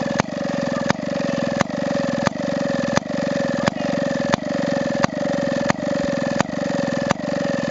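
Maytag Multi Motor, a small two-stroke gas engine for washing machines, running steadily with a putt-putt sound and a sharp crack about every 0.7 seconds.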